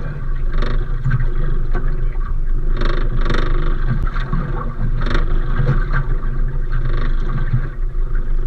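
Steady low rumble on a small fishing boat at sea, with several brief louder bursts spread through it.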